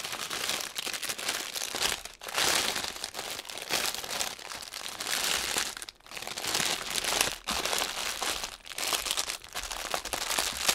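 A clear plastic bag packed with small packets of diamond-painting drills crinkling as it is handled and pressed flat. The rustling comes in irregular bursts with short pauses between.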